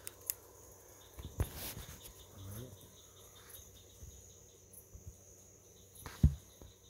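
Crickets chirping steadily in the background, with a few handling clicks and knocks; the loudest is a single thump about six seconds in.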